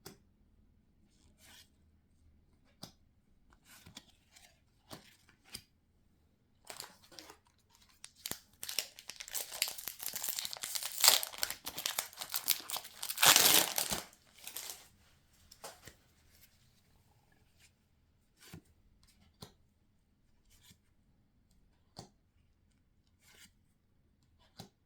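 Foil Pokémon card booster pack wrapper being crinkled and torn open, the loudest rip about thirteen seconds in. Scattered light clicks and taps before and after it.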